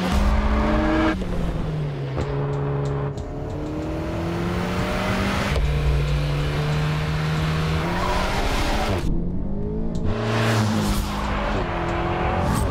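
Alpine A110's 1.8-litre turbocharged four-cylinder engine pulling hard on track, its note climbing and dropping with the throttle and gear changes, with several abrupt jumps in pitch where the sound cuts from one pass to another.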